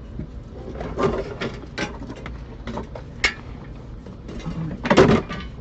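Irregular clicks and knocks of car interior parts and tools being handled, with a louder clatter about five seconds in.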